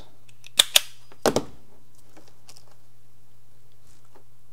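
Red FELO wire stripper, made by JOKARI, snapping shut on the insulation of wire ends: two sharp clicks about half a second in, then another quick pair just over a second in, followed by faint ticks from handling the wires.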